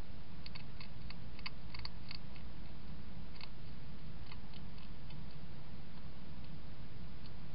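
Wild European hedgehog chewing food at a dish: a quick run of small crunching clicks in the first two seconds, then scattered ones until about five seconds in, over a steady low rumble.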